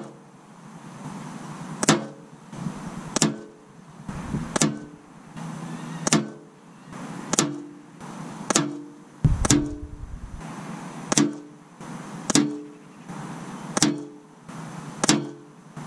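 A quick series of about a dozen sharp air rifle shots from an Anschutz 9015 firing 10-grain Zan slugs, roughly one every second and a bit, each with a brief ringing tone after the crack.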